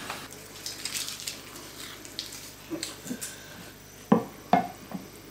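Kitchen utensils and dishes clinking and knocking lightly, with two sharper knocks that ring briefly a little after four seconds in.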